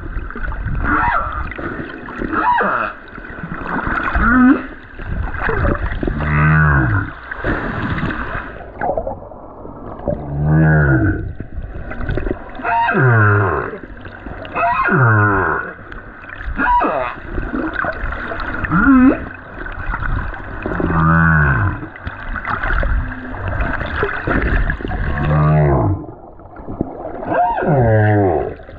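Male humpback whale singing, heard underwater: a repeating phrase of calls about every two seconds, each sliding down in pitch from high to low.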